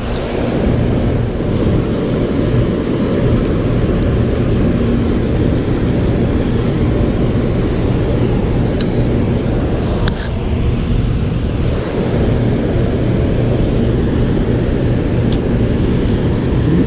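Steady low roar of water pouring over a dam spillway and churning below it, with a few faint clicks.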